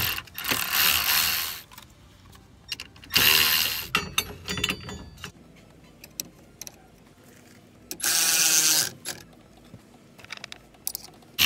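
Screws being backed out with a ratchet wrench: three bursts of rapid clicking, each about a second long, with scattered single clicks of the tool and screws being handled in between.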